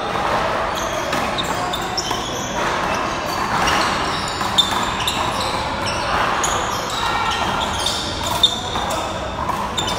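Handball rally: the small rubber ball slapped by hand and smacking off the wall and floor, sharpest about halfway through and again near the end, with sneakers squeaking on the court floor.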